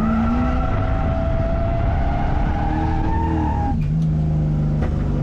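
Drift car's engine pulling hard with tyres skidding. The engine pitch climbs steadily, then falls sharply a little under four seconds in and holds lower.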